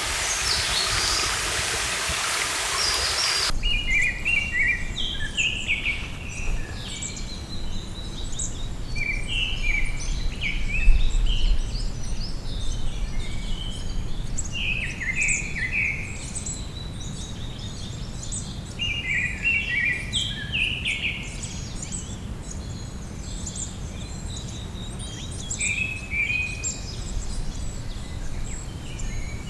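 A stream rushing, cut off abruptly about three and a half seconds in. Then songbirds sing short, repeated, falling phrases every couple of seconds over a low steady rumble.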